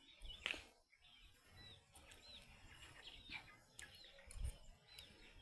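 A bird chirping faintly, a string of short, high, arched chirps about half a second to a second apart, with a few soft clicks in between.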